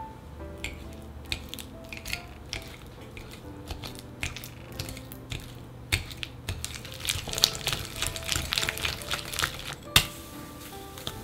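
Wire hand whisk creaming softened butter and peanut butter in a glass bowl: irregular clicks and scrapes of the wires against the glass that turn into a quick, steady rattle about two-thirds of the way in, with one sharp knock near the end. Soft background music plays underneath.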